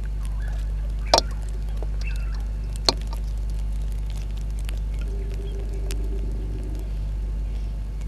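Steady low electrical hum on the outdoor camera's audio, with two sharp clicks about one and three seconds in and faint short bird calls.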